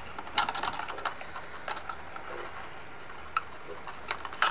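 Cardstock pieces of a die-cut paper box being handled and pressed together: soft rustling with a few sharp little clicks and taps, the loudest about half a second in.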